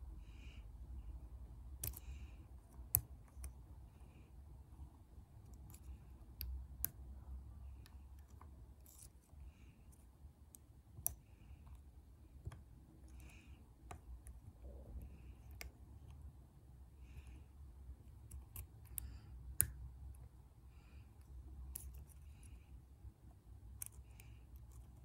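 Lock pick and tension wrench working the pins inside a pin-tumbler lock: faint, irregular small metallic clicks and ticks as the pins are lifted and set, with a steady low hum beneath.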